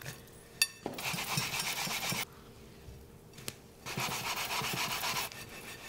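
Breadcrumbs being pressed and rubbed onto a raw, egg-coated chicken cutlet by hand in a ceramic dish. It makes a gritty rustling in two spells, with a short tap just before the first.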